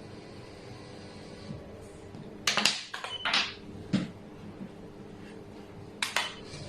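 Wooden xiangqi pieces clacking against the board and each other: a quick run of sharp clacks about two and a half seconds in, one more a second later, and another pair near the end, over a steady low hum.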